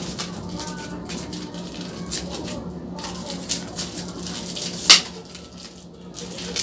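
Close-miked crinkling and small clicks of a plastic drinking straw being handled and unwrapped, with one sharp click about five seconds in.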